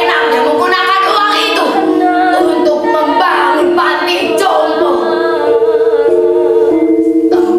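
A woman's voice singing, bending up and down in pitch, over a steady held musical note.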